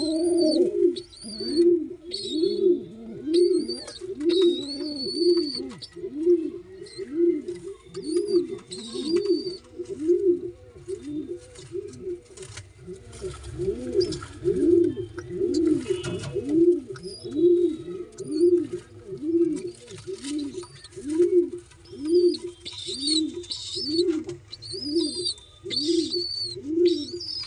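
Domestic pigeons: a steady, rhythmic string of low coos, about one and a half a second, with high, squeaky begging peeps from a well-grown squab coming in bursts, most thickly near the end.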